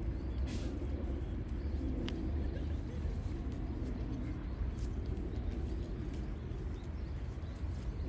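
Steady low outdoor rumble, with a few faint, brief clicks.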